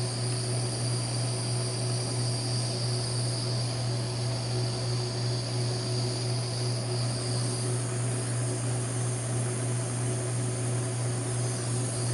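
Small handheld heat torch burning steadily, its flame heating a copper wire lug to melt solder inside it.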